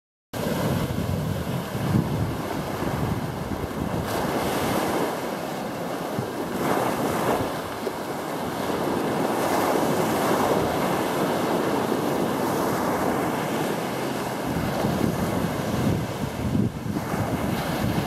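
Small waves breaking and washing up a sandy shore, with wind buffeting the microphone, the buffeting strongest in the first few seconds and again near the end.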